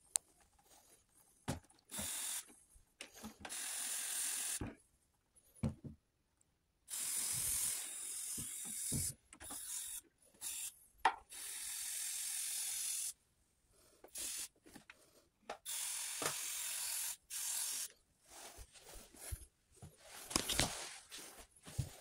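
Würth cleaning spray hissing onto a mobile air conditioner's finned coil in repeated bursts of one to two seconds, about six in all, with short knocks and handling noise between them.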